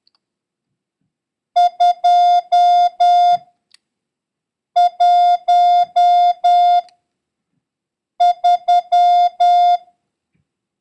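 Morse code practice tone, a steady beep near 700 Hz keyed on and off in short dits and long dahs. It sends the digits 2, 1 and 3 as three separate groups of five elements each, with a pause of over a second between groups.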